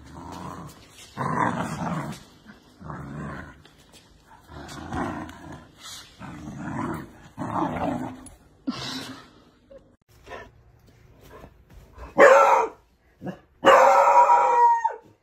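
A puppy play-growling in short repeated bursts while tugging at a trouser leg. Near the end a hound gives two loud drawn-out bays, the second held for over a second and falling at its end.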